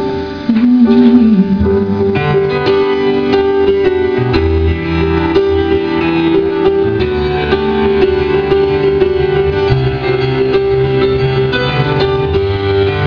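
Live pop ballad played on piano, a man's voice holding a last sung note in the first second or two, then a piano-led instrumental passage with a steady pulse of low notes.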